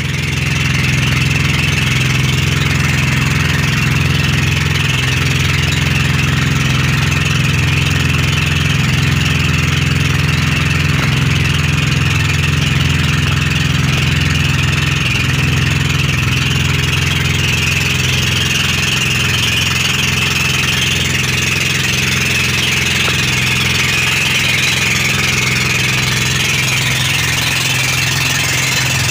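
Outrigger boat (bangka) engine running steadily at cruising speed, with water rushing along the hull as the boat is underway.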